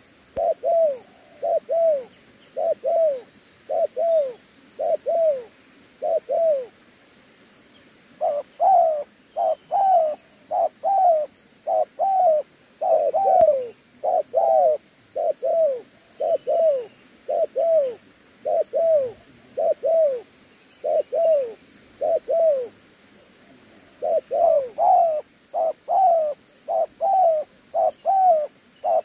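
Spotted dove cooing: a long run of short coos, each a quick pair of falling notes, coming a little faster than one a second, with two brief pauses.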